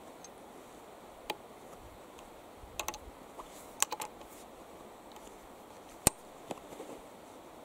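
Metallic clicks of a Remington Rolling Block .50-70 military rifle's action being worked by hand: one click about a second in, two quick pairs around three and four seconds, and a single sharp click, the loudest, about six seconds in.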